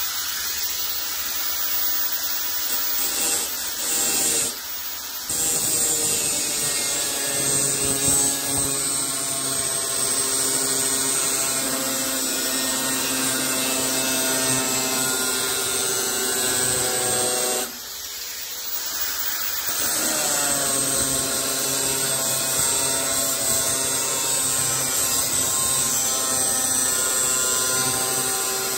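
Electric angle grinder cutting a steel sheet along a straightedge: a steady motor whine with a loud hiss from the disc in the metal. The cut breaks off briefly about five seconds in and again for about two seconds past the middle, then the whine rises as it picks up again.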